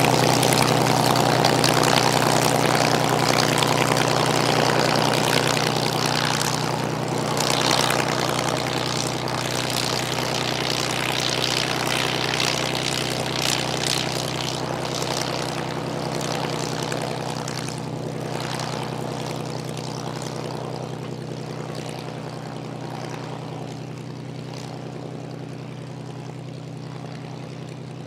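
Supermarine Spitfire Mk IX's Rolls-Royce Merlin V12 engine running at low taxiing power, a steady drone with propeller rush, growing gradually fainter as the aircraft taxis away.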